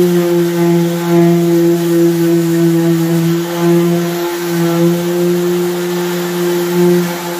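Milwaukee random orbital sander running at full speed as it sands a bare wooden stool seat, giving a steady hum.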